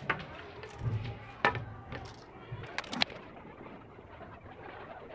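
A few sharp clicks and light knocks of wooden battens being handled and set against a wooden frame, loudest about one and a half and three seconds in, with a double knock near the three-second mark.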